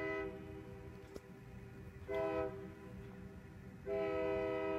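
Train horn sounding a chord of several tones: a long blast cuts off just after the start, a short blast comes about two seconds in, and another long blast begins near four seconds. A low rumble runs underneath.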